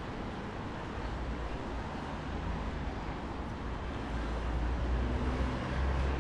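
Busy city street ambience: dense traffic with a steady rumble of engines and tyres. A deep rumble swells a little in the second half as heavier vehicles pass.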